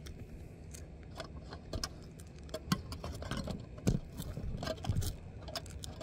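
Hands working at a sheet-metal roof dryer vent hood to get at its lint screen: scattered light metallic clicks, knocks and scrapes, sparse at first and busier from about halfway.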